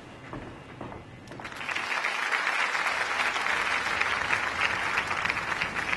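An audience clapping. It starts about a second in, swells, and then holds steady.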